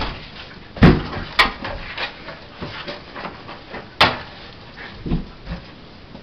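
A puppy shoving a huge tennis ball about: the ball knocks against a wooden door and wall, with sharp knocks about a second in, again half a second later, and about four seconds in, and lighter bumps between.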